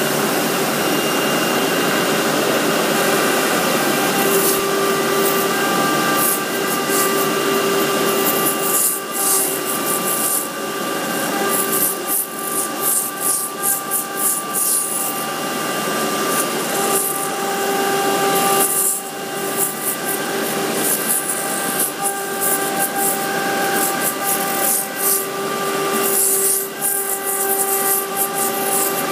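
Router spindle on a CNC flatbed cutting table running with a steady high whine while its bit mills a clear plastic sheet, a rough cutting noise over it. The cutting noise briefly drops away several times as the head moves between cuts.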